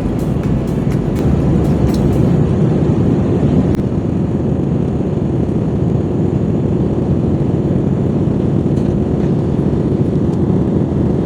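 Airliner cabin noise: a loud, steady low rumble from the engines and airframe, with a few light rattling clicks in the first couple of seconds.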